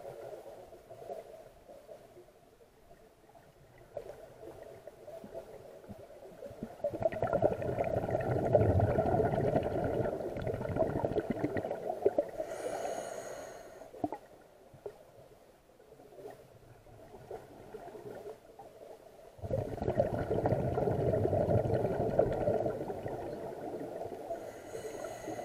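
Scuba diver's exhaled bubbles from the regulator, heard underwater: two long gurgling bursts of about five seconds each, one about seven seconds in and one near twenty seconds, with quieter breathing between.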